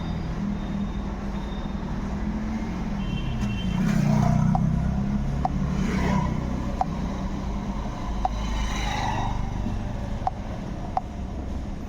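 A motor vehicle engine running steadily, rising in pitch and level about four seconds in before settling, with a few faint clicks.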